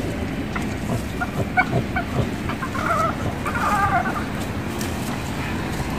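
Short, high-pitched animal calls over a steady low background noise: several brief cries in the first two and a half seconds, then two longer wavering calls about three and four seconds in.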